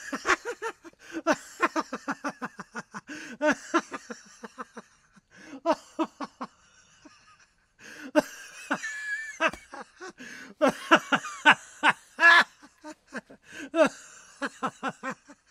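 Laughter: quick runs of short pulsed 'ha' sounds, broken by a couple of brief pauses.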